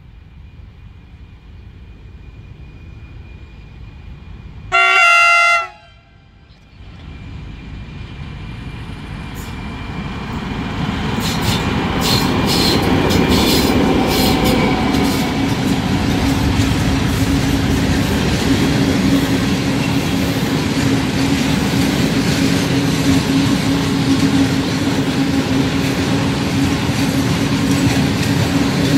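TEM2 diesel locomotive sounding one short horn blast about five seconds in, then growing louder as it approaches and passes close by with its engine running. A long train of tank wagons follows, rolling past with wheels clacking.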